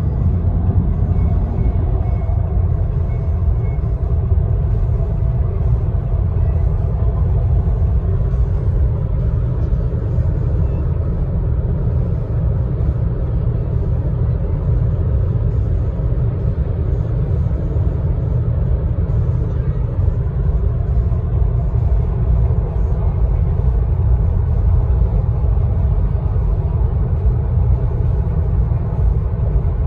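Interior noise of an Audi Q2 35 TFSI (1.5 TFSI four-cylinder petrol, 7-speed S tronic) cruising at about 130 km/h in seventh gear at roughly 2,000 rpm: a steady low rumble of engine, tyres and wind.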